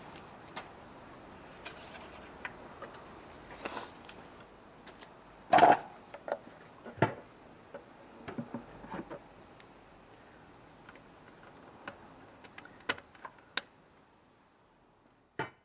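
Scattered clicks and light knocks of tools and parts being handled during a car oil change, with one louder clunk about five and a half seconds in.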